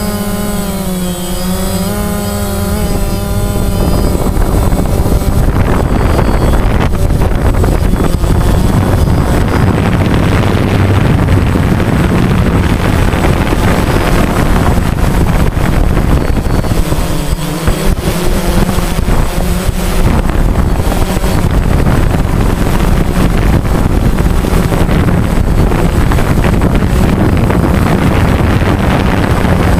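DJI Phantom quadcopter's motors and propellers whining, the pitch wavering up and down for the first few seconds. After that a loud, rough rush of wind buffeting the onboard GoPro microphone drowns the whine.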